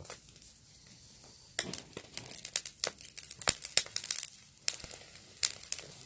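Irregular sharp crackles and pops from a charcoal grill cooking chicken innards, fat spitting on the hot coals, starting about a second and a half in.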